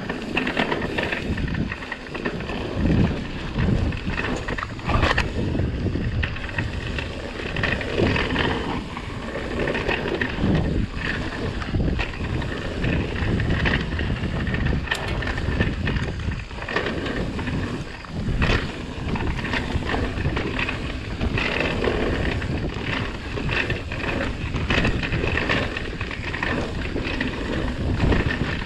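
Mountain bike ridden fast over a dirt singletrack: wind buffeting the microphone, tyres on loose dirt, and the bike rattling and knocking over bumps.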